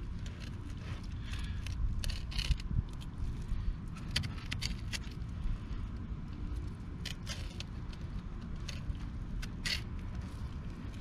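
Fillet knife cutting along a red drum's backbone and rib cage, with scattered short, crisp scrapes and clicks as the blade works through the tough scales and bone. A steady low rumble lies underneath.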